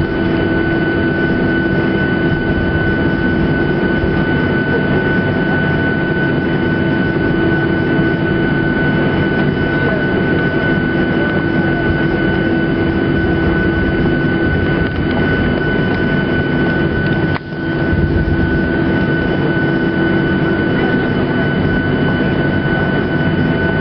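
Cabin noise of a Boeing 737-800 taxiing after landing, heard inside by the wing: its CFM56 jet engines at taxi idle make a steady hum with a steady high whine. The noise dips briefly about seventeen seconds in.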